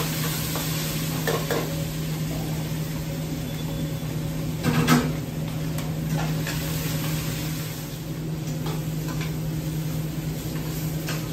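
Browned pasta and onion sizzling in a stainless steel pot while tomato purée is scraped in from a small container and stirred with a spoon. The spoon scrapes and taps against the pot, with a louder knock about five seconds in, over a steady low hum.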